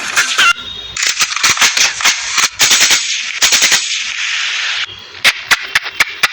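Ringtone sound effect of rapid machine-gun fire: a dense run of sharp shots lasting about four seconds, then a string of separate single shots.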